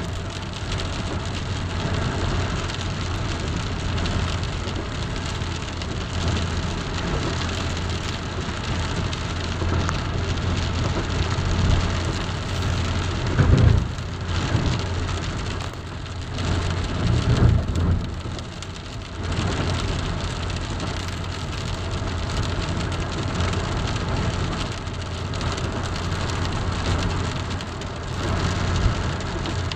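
Steady rain falling and hitting surfaces, with a constant low rumble underneath. Two louder low swells come about halfway through, a few seconds apart.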